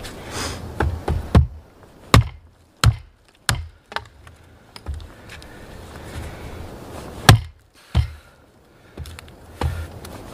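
Hatchet chopping into a wooden pole resting on a chopping stump: a series of sharp chops at uneven intervals, with a short lull mid-way and one especially loud blow about seven seconds in.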